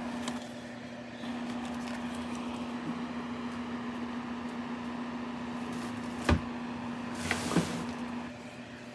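Trading cards being put away: a sharp knock about six seconds in, then a short scraping slide like a drawer being opened, over a steady low hum.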